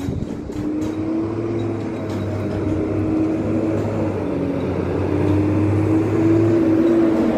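A large truck's engine running as it drives slowly closer, growing louder, its pitch rising and falling twice as the driver eases on and off the throttle.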